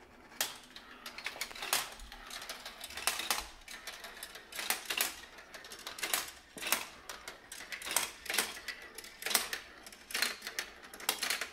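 Marbles rolling and clattering down a Gravitrax marble-run tower of stacked plastic track pieces, with many sharp, irregular clicks as they hit the track and drop from level to level.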